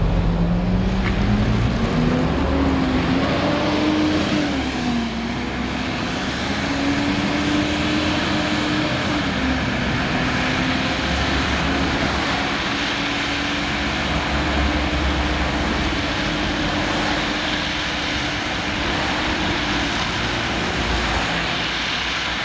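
Engine cooling fan of a Volvo B7TL double-decker bus with a hoover-like whine. The whine rises in pitch over the first few seconds, then holds steady before fading near the end, over steady engine rumble and a haze of fan and road noise.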